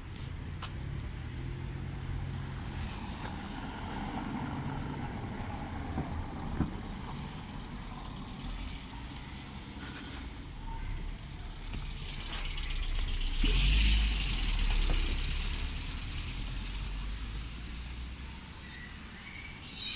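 Street traffic rumble, with a motor vehicle passing that swells to its loudest about fourteen seconds in and then fades.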